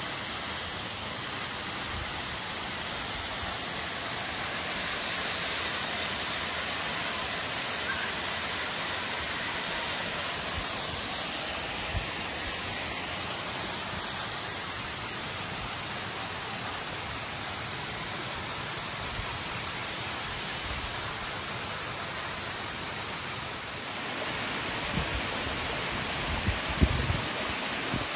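Waterfall water rushing as a steady, even hiss, growing louder for the last few seconds.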